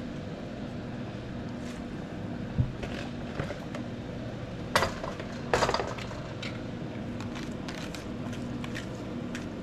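Soup being made in a pot of boiling water, with vegetables going in. A steady low hum runs underneath, with scattered light clicks, a dull knock, and two sharp clatters about five seconds in.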